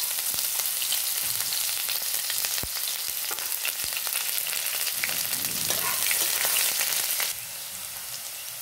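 Chopped onion sizzling in hot oil in a wok: a steady hiss with scattered sharp crackling pops. The sizzle drops quieter about seven seconds in.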